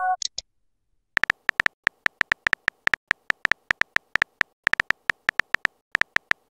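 Phone-keyboard typing clicks from a texting app: short, sharp ticks at about six a second, unevenly spaced, as a message is typed out. It opens with the last of a message chime and two short high blips.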